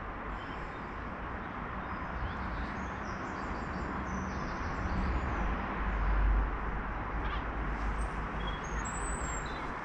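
Steady rush of distant road traffic, with a low rumble swelling about five to six seconds in. A few faint, short, high bird chirps come near the end.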